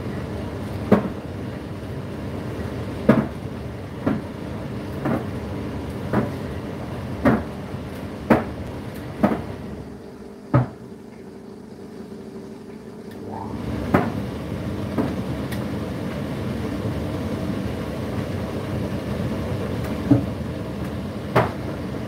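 Indesit IDC8T3 condenser tumble dryer running, its motor humming steadily while the drum turns, with sharp knocks about once a second as the load tumbles. The hum and knocks drop away for about three seconds in the middle, then the drum starts turning again.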